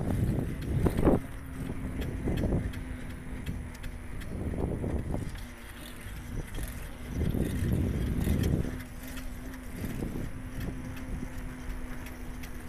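Wind buffeting the microphone in uneven gusts during outdoor travel, over a low rumble, with a faint steady hum that comes and goes.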